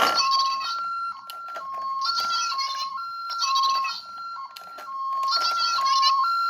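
A toy minicar's electronic siren, a high-low two-tone pattern of the ambulance kind repeating steadily through a small speaker, with a crackly rattle layered over it in regular bursts. There is a sharp click right at the start.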